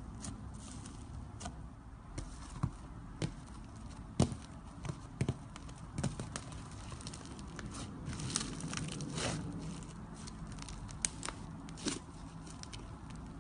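Iceberg slime being pressed and squeezed by fingers, its hardened top crust crackling and popping in irregular sharp snaps over a low squishing rustle, denser about eight to nine seconds in.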